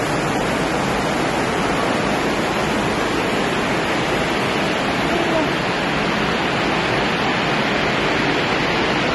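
Heavy rain falling on the roof of a large market hall, heard from inside as a steady, loud rushing noise.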